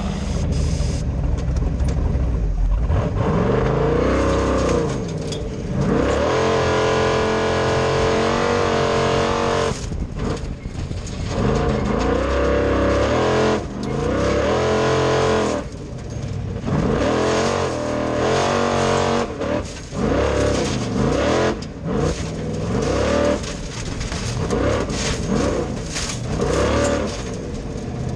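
Formula Offroad buggy's engine heard from inside the cockpit, revved hard and let fall again and again, its pitch climbing and dropping every few seconds, with several sudden breaks where the throttle is lifted.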